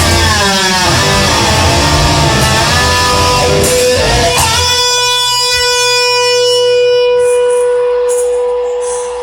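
Music: a guitar playing lead lines with bending notes, then holding one long sustained note from about halfway through.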